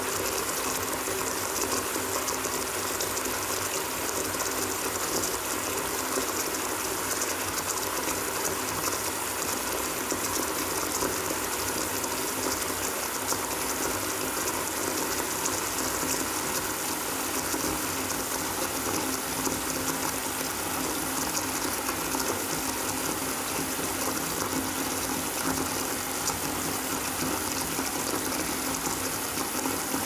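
Water running steadily from the tap into a bathtub as it fills.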